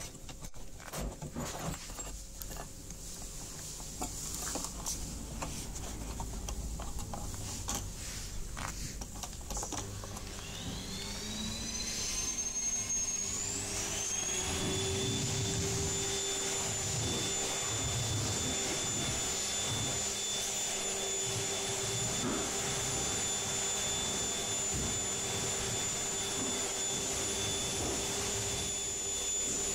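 A vacuum cleaner starts up about ten seconds in: its motor whine rises in pitch over a few seconds, then settles into a steady high whine over a low hum. Before it there are scattered clicks and knocks.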